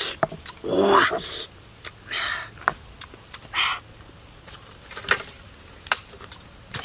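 Scattered sharp knocks and rustles, with a knife chopping into a bamboo shoot in a few hard strikes over the last two seconds. A steady high insect drone runs underneath.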